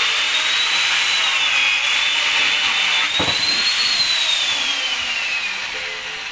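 A machine running with a steady high whine over a hiss, with a single click about three seconds in; near the end the whine falls in pitch and the sound fades, like a motor winding down.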